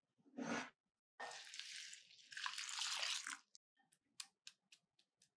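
Warm milk poured from a jug onto quick oats in a bowl: a splashing pour of about two seconds, after one short thud near the start. Then a wooden spoon clicks lightly against the bowl as the oats are stirred, about four clicks a second.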